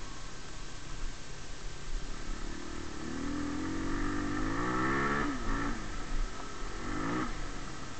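Rieju Marathon Pro SM 125's single-cylinder engine, heard from the rider, running low at first. About three seconds in the revs climb, fall off sharply just after five seconds, climb again and fall off just past seven seconds.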